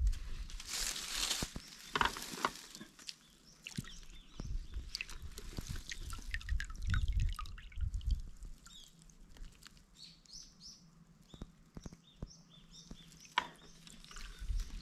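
Water dripping and splashing from a dip net full of waterweed, with a burst of splashing about a second in and scattered small drips and clicks after.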